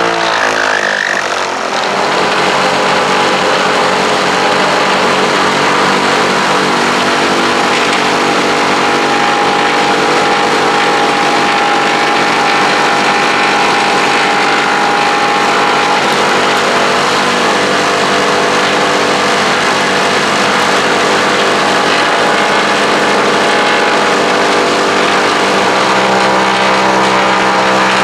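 Twin piston engines and propellers of a Britten-Norman Islander running in a steady drone, picking up in the first couple of seconds. Near the end the lower tones of the drone grow stronger.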